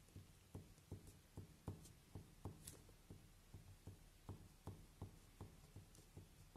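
Faint, evenly paced taps of a pen tip on paper, about three a second, as small marks are dotted in by hand.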